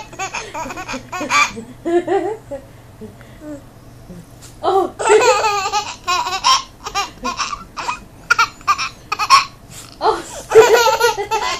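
Hearty laughter in repeated fits of rapid pulsing laughs, with quieter gaps between the bursts: a person cracking up at someone's sneezes.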